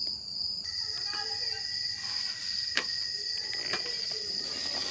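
Crickets trilling steadily at night, heard as a continuous high tone; a second, lower trill joins about half a second in. Two sharp clicks sound near the middle.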